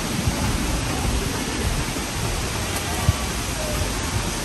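Rushing water of a mountain stream's waterfalls and pools, a steady hiss, with scattered low thumps on the microphone.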